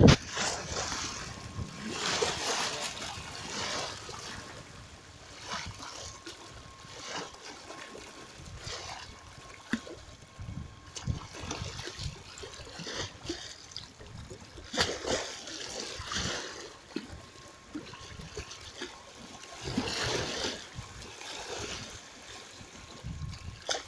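Waves splashing and sloshing against a stone-stepped embankment, coming in irregular surges every couple of seconds.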